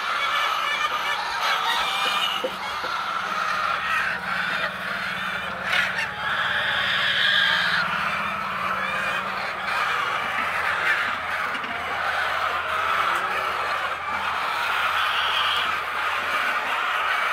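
A flock of domestic fowl calling continuously, many birds at once in an overlapping din.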